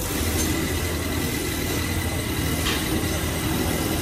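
Stator lamination welding machine switched on and running steadily, a low hum and an even hiss with a faint constant high tone, as it welds the seams of ceiling-fan stator stacks.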